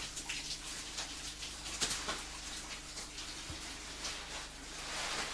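Cave stream water splashing and trickling, with scattered short clicks and knocks, over a low steady hum.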